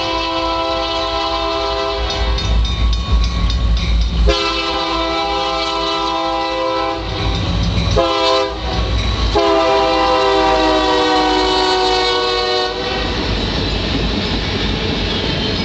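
Union Pacific DD40X diesel locomotive passing at speed and blowing its air horn in the grade-crossing signal: the end of one long blast, then long, short, long. The last long blast drops in pitch as the locomotive goes by. A low rumble comes between the blasts, and after the horn stops there is the steady running noise of the train on the rails.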